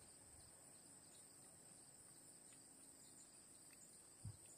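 Near silence outdoors, with the faint steady high-pitched chirring of insects such as crickets, and a brief soft low thump near the end.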